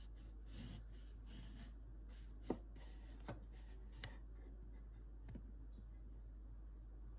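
Quiet room with faint rustling and four soft, sharp clicks a second or so apart, like small objects being handled.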